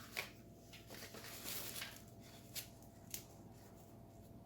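Bicycle tyre and inner tube being handled and worked onto the wheel rim: a few short scrapes and taps, with a longer rubbing rustle about one and a half seconds in.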